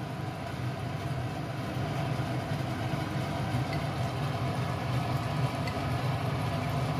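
Steady low hum, like a motor running, with no clear start or stop.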